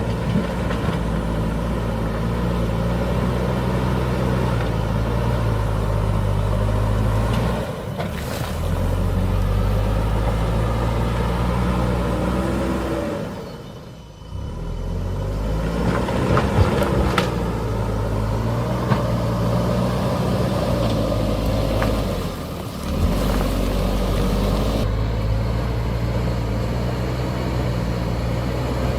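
JCB backhoe loader's diesel engine running under load, its pitch rising and falling as the machine works, with a few sharp clanks about halfway through. The sound briefly drops away three times.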